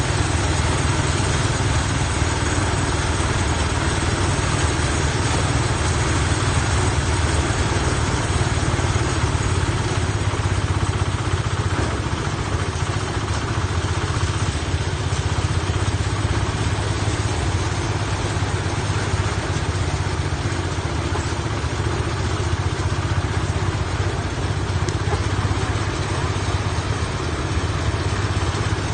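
An engine running steadily at constant speed, deep and unchanging, with no revving or stops.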